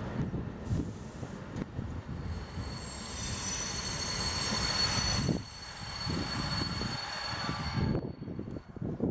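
Freight train of flat wagons rolling past with a steady wheel rumble. A high, steady wheel squeal sets in about two seconds in and stops about a second before the end.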